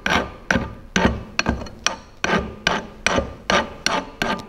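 Hand file dressing the electrode tip of a resistance spot-welding gun, in short quick strokes about two to three a second. The tip has widened with use and is being filed back to a cap-shaped point of about 5 mm.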